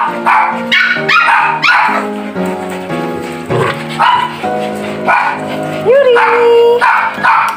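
Several puppies yipping and barking in rough play, short high rising yips scattered throughout and one longer drawn-out cry about six seconds in, over background music.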